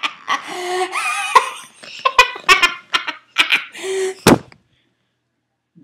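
A girl's voice making loud, wordless shrieks, squeals and laughing noises, with a few sharp knocks mixed in. It cuts off suddenly about three-quarters of the way through.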